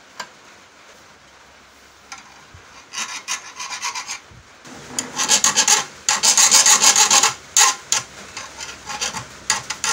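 Hand file scraping along a metal flat bar clamped in a bench vise. A click comes just after the start. The repeated file strokes begin about three seconds in and run fast and loudest in the middle, then come as a few separate strokes near the end.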